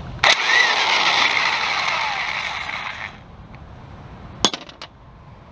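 Corded electric impact wrench hammering on a bracket bolt of an engine block for about three seconds, then stopping suddenly. About four and a half seconds in, a single sharp metallic clank followed by a couple of lighter clinks.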